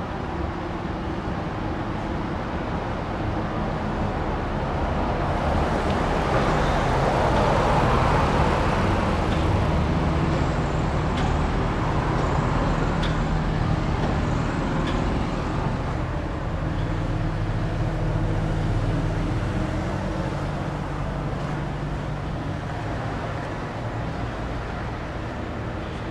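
Road traffic: a vehicle passing, its noise swelling to a peak about a third of the way in and slowly fading, over a steady low engine hum.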